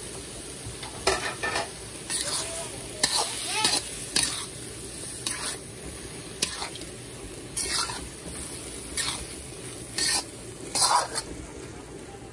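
Metal spatula scraping and turning vegetables in a hot wok, repeated scrapes about once a second over a steady sizzle.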